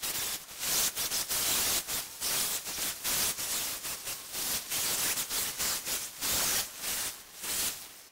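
Small carving chainsaw revved in short, irregular bursts as it cuts into the fresh pine at the base of the carving, heard mostly as harsh hissing noise.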